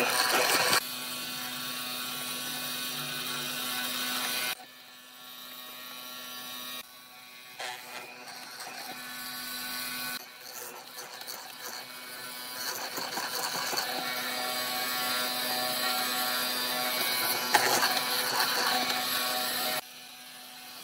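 Benchtop hollow-chisel mortiser running, a steady motor hum as its chisel bores square mortises into a wooden block, with the loudness jumping abruptly several times.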